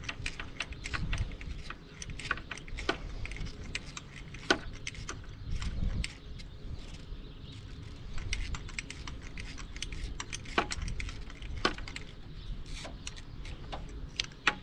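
Irregular metallic clicks and clinks of hand tools and loose bolts as exhaust manifold bolts are worked free, with a couple of dull knocks.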